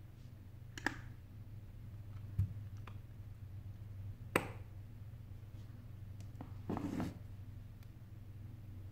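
Handling noise from a smartphone turned over in the hands: a few sharp clicks and taps, the loudest about halfway through, and a brief scuff about seven seconds in, over a steady low hum.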